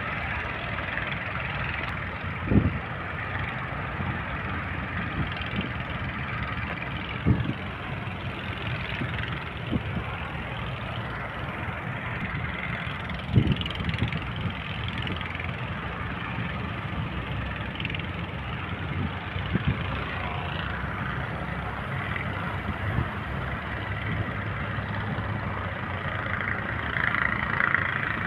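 A small boat's engine running steadily under a wash of water and wind noise, with a few dull thumps, the loudest about a third of the way in.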